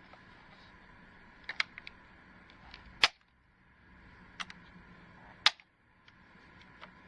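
A few short, sharp clicks over a faint steady hum; the two loudest come about two and a half seconds apart, each followed by a brief drop to near silence.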